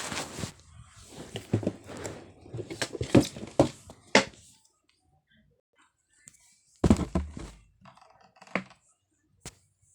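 New shoes being handled and fitted back into their cardboard shoebox: a run of knocks and rustles, then a louder thud about seven seconds in and a couple of single clicks.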